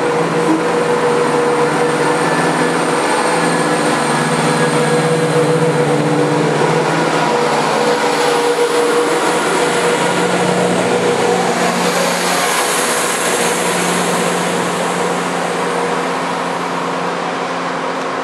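CrossCountry Voyager diesel multiple unit running past along the platform. Its underfloor diesel engines hum steadily over wheel and rail noise, the engine tones shifting as successive cars go by.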